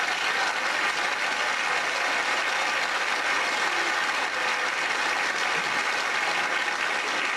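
Large theatre audience applauding steadily after a comedian's punchline.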